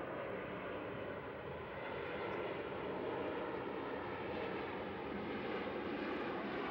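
Airbus A380 jet engines heard from the ground as the airliner flies past overhead: a steady jet noise that grows a little louder about two seconds in.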